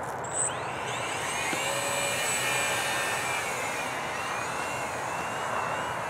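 Small foam RC flying wing's motor and propeller whining as the plane is hand-launched. There is a brief bump about half a second in. The pitch rises over the next second or so as the motor spools up, then holds a steady whine that wavers slightly in pitch as the plane flies.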